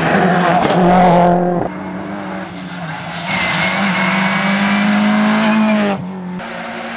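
Rally cars at full throttle on a tarmac stage. A Ford Focus WRC's engine passes close by and breaks off abruptly about a second and a half in. Then a Renault Clio rally car's engine approaches, its note climbing steadily in pitch until it stops abruptly near the end, leaving a quieter engine sound.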